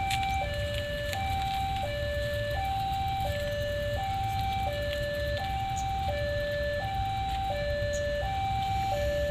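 Electronic level-crossing alarm sounding its two alternating tones, high then low, each held about 0.7 s and repeating steadily: the crossing's warning that a train is approaching, with the barriers down. A low steady rumble lies beneath it.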